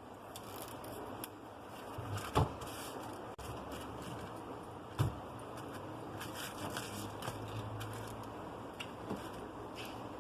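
Two sharp knocks about two and a half seconds apart, with light clicks and taps between them, over a steady background noise: small hard objects being handled and set down.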